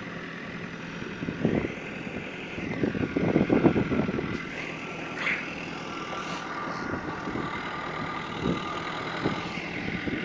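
Backhoe loader's diesel engine running as the machine tries to drive up a slope it is stuck on, with a loud burst of clattering knocks about three to four seconds in and a shorter one about a second and a half in.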